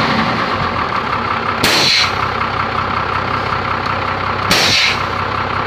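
Truck engine idling, with two short sharp hisses of air about three seconds apart from the air brake foot valve exhausting as the brakes are worked. The foot valve has just been replaced because it leaked air when the pedal was pressed.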